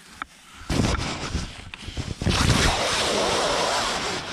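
Nylon tent fabric rustling loudly as it is handled and rubbed against the microphone, starting about a second in and growing fuller partway through.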